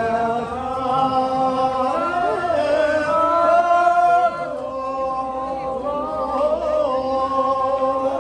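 Kyidrong circle dancers singing a slow folk dance song together, a chant-like melody on long held notes. One phrase ends about four seconds in and the next begins a little softer.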